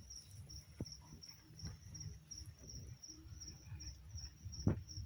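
A cricket chirping steadily in high, evenly spaced pulses, about three or four a second, with two soft knocks, one about a second in and a louder one near the end.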